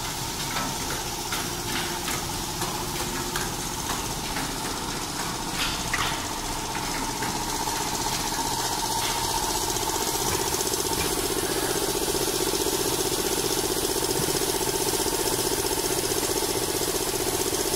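Cellophane overwrapping machine running, its mechanism clicking in a regular cycle about one and a half times a second over a steady hum. About ten seconds in, a louder, steady motor drone sets in and keeps going.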